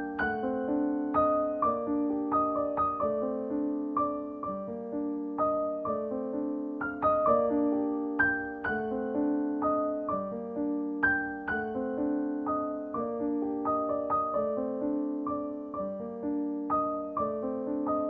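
Background music: piano playing a continuous run of notes, each struck and fading away, in a repeating pattern.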